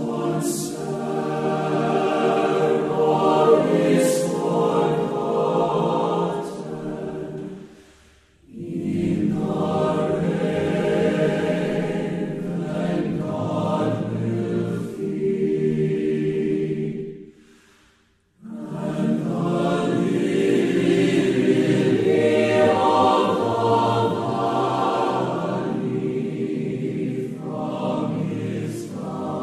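Virtual choir of mixed men's and women's voices singing together, in three long phrases with short breaks about eight and eighteen seconds in.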